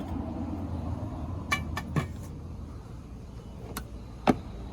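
A few sharp clicks and knocks of machinist tools being handled in a wooden tool chest, a cluster about halfway through and the loudest knock near the end, over a steady low hum.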